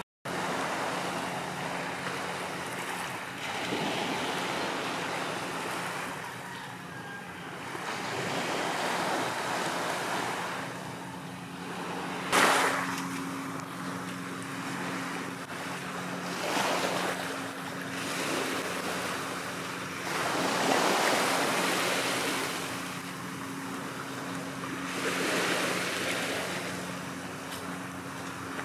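Small waves washing onto a pebbly shore, swelling and fading every few seconds, with one sharper, sudden surge about twelve seconds in. A steady low hum runs underneath.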